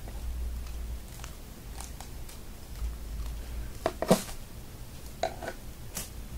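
Pliers scraping and crunching the gray pyrotechnic coating off a sparkler's wire stick: scattered clicks and short scrapes, the loudest burst of crunching about four seconds in and another shortly after five seconds.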